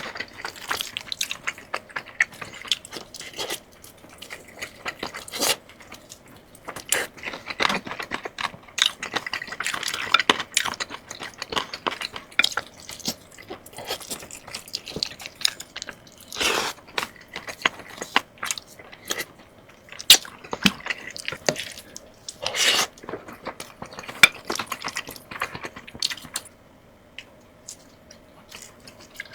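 Close-miked eating: chewing and crunching with wet mouth sounds and many small clicks, and a few longer, louder sounds past the middle. It dies down near the end.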